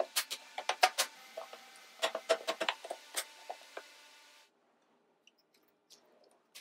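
Thin wooden divider pieces clacking and tapping together as they are fitted into a slotted grid inside a drawer box: a quick, uneven run of sharp wooden clicks. About four seconds in, the sound cuts to near silence with only a few faint ticks.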